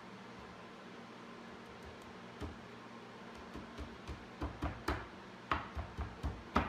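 Wooden knocks and clicks of cherry boards in a dry-fitted bookcase being handled and pressed together: about a dozen short taps starting a couple of seconds in, the last few loudest, over a faint steady hum.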